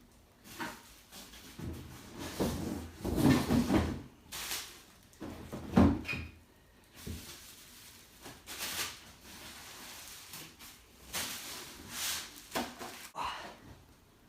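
Cardboard packaging being handled as the electric scooter is pulled out of its box: irregular scraping, rustling and knocks, the loudest thump about six seconds in.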